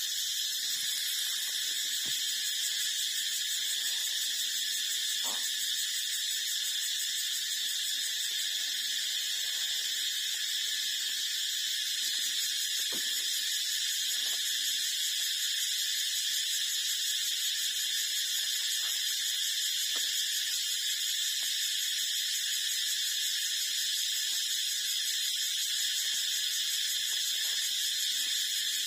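A steady, high-pitched drone without a break, with a few faint soft clicks beneath it.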